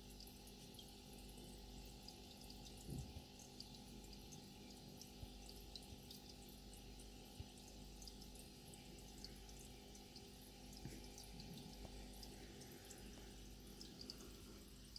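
Faint trickling and dripping of aquarium water over a low steady hum, with scattered small ticks.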